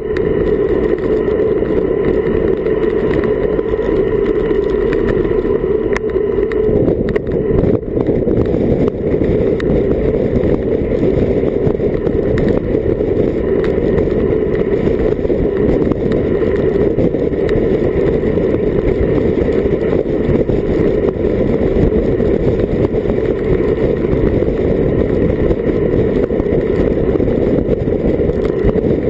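Steady wind rush on an action camera's microphone during a bicycle descent at about 38 km/h.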